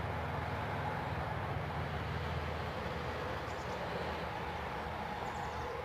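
Steady low hum and rumble of distant motor traffic under an even background hiss.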